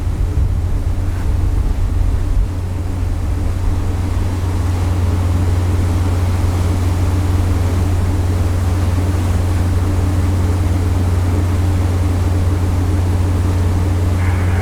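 Steady low drone of a cargo-passenger ship's engines heard on board, with the rush of wind and water over it.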